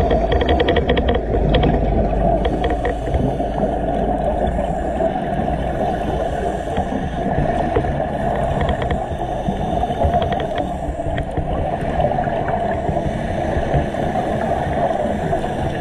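Muffled underwater noise picked up through a camera's waterproof housing: a steady low rush of water with faint scattered clicks.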